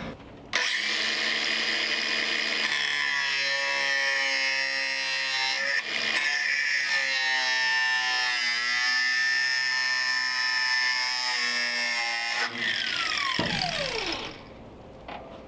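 Electric angle grinder with a thin cut-off wheel cutting through rusted sheet steel, running at a steady high whine for about twelve seconds with a brief dip partway through, then spinning down with a falling whine near the end.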